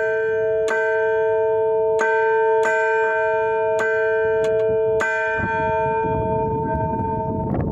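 Church bells being struck in an irregular peal, about eight strokes in the first five seconds, each over a steady ringing hum. The strokes then stop and the bells ring on, with a rough noise rising underneath near the end.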